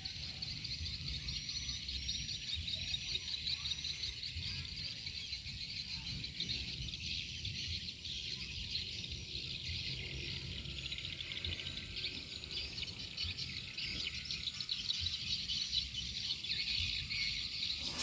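Dense, continuous high twittering and chirping of swiftlets, made of many short chirps and quick rising notes, over a steady high shrill hiss.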